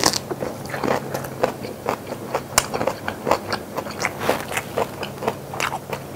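A person chewing a mouthful of food close to a lapel microphone: short, wet mouth clicks and squelches, irregular at about three a second.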